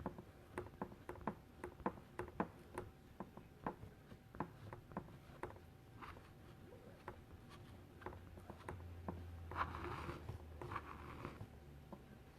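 Plastic squeegee scraping excess chalk paste off a silkscreen transfer: a quiet run of light, irregular clicks and scrapes, several a second, with a longer rubbing scrape near the end.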